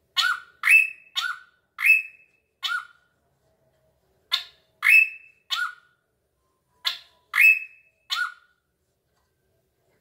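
Caged drongo (srigunting) calling in three bouts of short, loud notes: five, then three, then three. Each note is a sharp rasp ending in a brief whistled slur.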